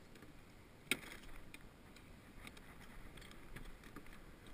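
Faint knocks and clicks aboard a fishing kayak: one sharp click about a second in, then a few lighter ticks over a low hiss.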